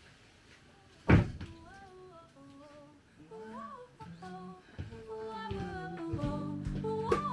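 A single loud thunk about a second in, then a voice humming a wordless tune, with instrumental music coming in under it and growing louder about six seconds in.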